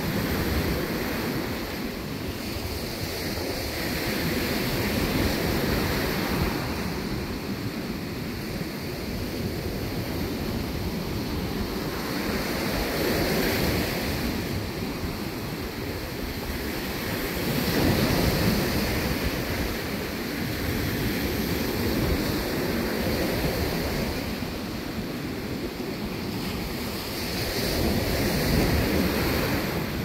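Ocean surf washing up a sandy beach, a steady rush that swells and falls back every few seconds as each wave comes in.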